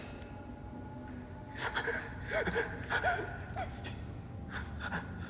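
Injured person gasping for breath: a run of short, ragged gasps, some catching on a strained voiced sound, starting about one and a half seconds in.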